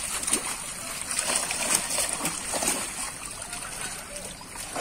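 Fish thrashing and splashing in a fishing net drawn tight in a pond, a run of short irregular splashes and slaps over a steady wash of moving water.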